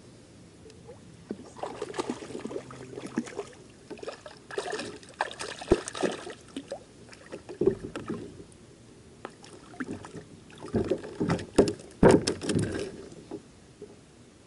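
Fishing tackle being handled in a kayak as a small catfish is reeled in and lifted out on the line: irregular clicks, knocks and rustles, loudest a couple of seconds before the end.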